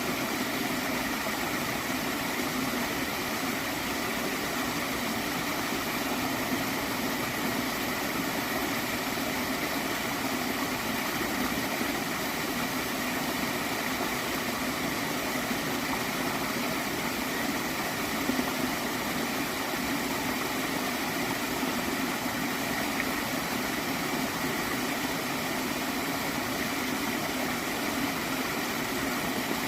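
Gentle stream of water flowing and gurgling, a steady even rush without breaks.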